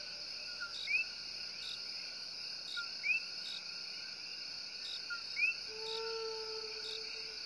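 Common coquí frogs calling over a steady high-pitched chorus of frogs and insects. Three times, one frog gives its two-note 'co-qui' call, a short low note followed by a rising one. About six seconds in, a lower held note joins.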